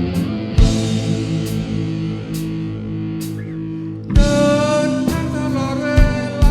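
Live band rehearsal: electric guitar, bass and drum kit playing, with regular cymbal strokes and heavy drum hits. A lead melody line comes in about four seconds in.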